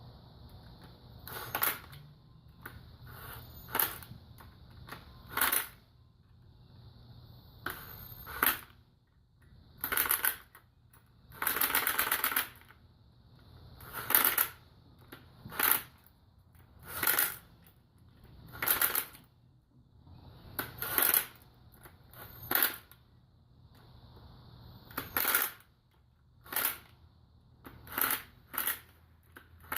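Hand ratchet wrench clicking in short strokes every second or two, with one longer run of fast clicks about twelve seconds in, as bolts are run down on the engine.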